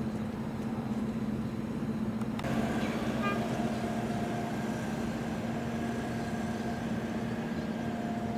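Diesel railcar of the KA BIAS train running as it pulls out, a steady low drone with a higher steady whine joining in about two and a half seconds in.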